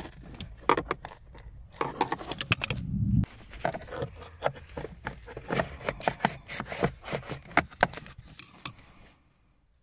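Screwdriver prying and scraping at a car's plastic pollen filter housing, with a rapid, irregular run of clicks and scrapes as the filter is worked loose. The clicking stops about nine seconds in.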